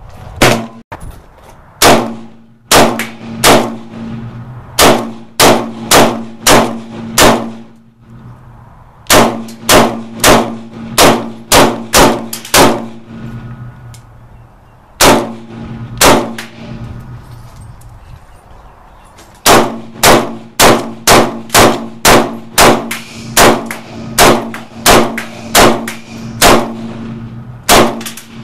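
AK-74 rifle in 5.45×39mm fired in rapid single shots, about two a second, each a sharp crack with a short ringing tail. The shots come in a long string, a second string, two lone shots, then another long string. A steady low hum runs underneath.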